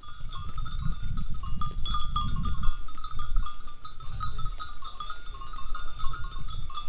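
Bells on a herd of sheep and goats, many small bells ringing and clinking irregularly and overlapping as the animals move, with a low rumble underneath that swells now and then.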